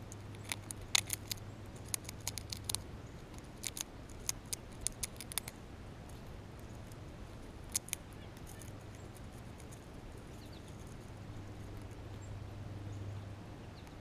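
Grey squirrel gnawing and cracking a nut shell held in its paws: a quick run of sharp, crisp clicks for the first five seconds or so, then a couple more near the middle.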